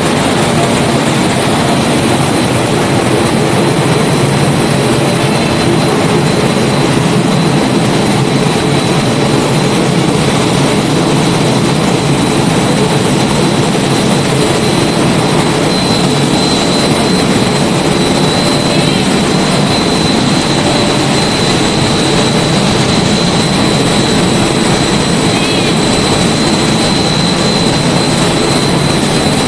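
Corn flakes production line machinery running: a loud, steady mechanical noise with a constant high-pitched whine that grows stronger about halfway through.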